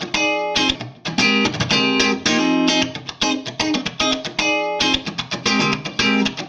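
Electric guitar played through an Orange Kongpressor opto compressor pedal: a run of picked notes and short phrases with sharp attacks, some notes held out.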